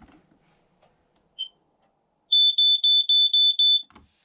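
Modern FireX FX1218 smoke alarm being tested: one short chirp, then about a second later its high-pitched piezo horn sounds in rapid pulses for about a second and a half and stops abruptly.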